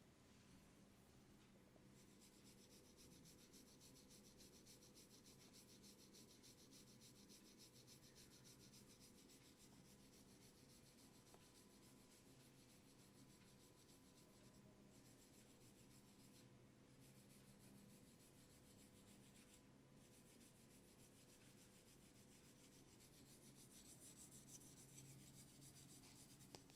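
Faint, steady rubbing of hands over oiled skin during a head and neck massage, growing a little louder near the end.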